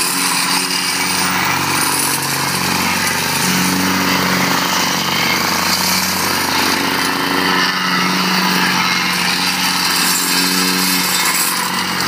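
Gas-engine vibratory plate compactor running steadily as it is walked over a soil and gravel base to compact it: a small engine drone mixed with the pounding rattle of the vibrating steel plate.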